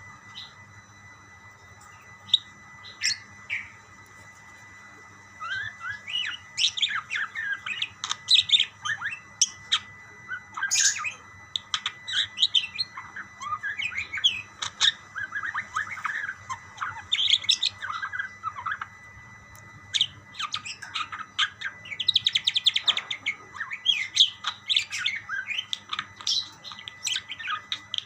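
Budgerigars chattering back and forth in quick warbling chirps and squawks. The calls are sparse at first, then come thick and continuous from about five seconds in.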